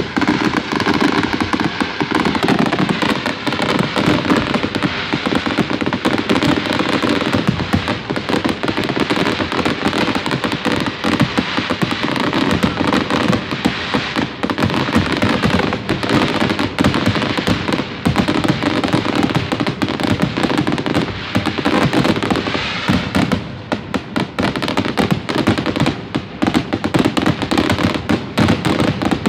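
Fireworks display: aerial shells bursting in a dense, continuous barrage of bangs and crackling, the reports overlapping with no pause.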